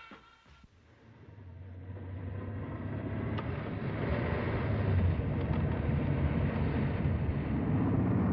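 Recorded sound effect of a truck on the move: a steady engine rumble with road noise, fading in over the first couple of seconds and then holding.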